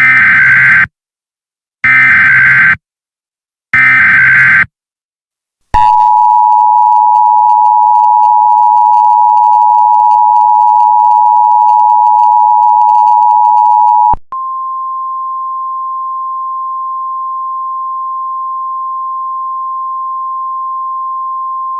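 Emergency Alert System tones: three short bursts of the SAME digital header, then the two-tone EAS attention signal held steady for about eight seconds. It switches to a single steady, quieter weather-radio alert tone.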